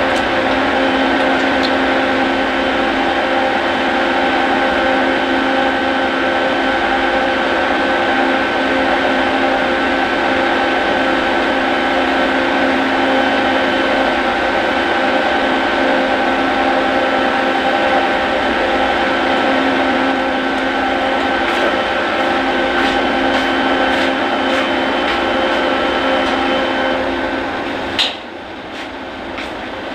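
A motor-driven machine runs with a steady hum made of several even tones over a noisy whir. About 28 seconds in, it drops off sharply with a clack, leaving a quieter background with a few clicks.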